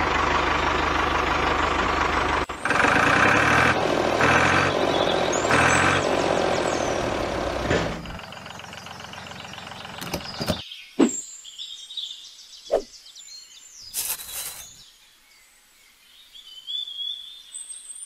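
Tractor-like engine sound, loud and pulsing for about eight seconds, then it stops. After that come a few clicks and knocks, and birds chirping near the end.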